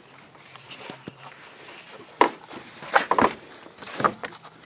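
Saw chain clattering as it is handled and laid along a plastic chain-length scale on a workbench, with a few sharp clacks of metal links, the loudest about two seconds in and more around three and four seconds in.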